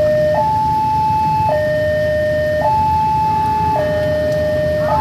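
Electronic two-tone railway level-crossing alarm switching between a low and a high tone about every second, over a low steady rumble.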